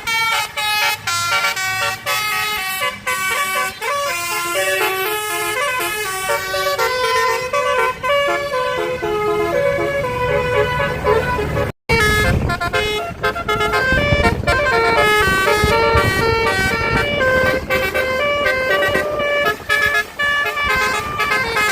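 Indonesian tour bus basuri telolet horn, a multi-trumpet musical air horn, playing melodies of held notes that step up and down in pitch. There is a brief break about twelve seconds in, and a low rumble sits under the notes after it.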